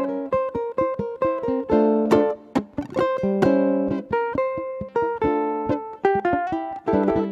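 Two ukuleles playing an instrumental duet, a quick plucked melody over chords, with notes picked out in rapid succession.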